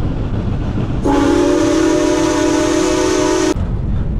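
Steam locomotive whistle blowing one long blast of about two and a half seconds, starting about a second in, several tones sounding together as a chord, over a steady low rumble.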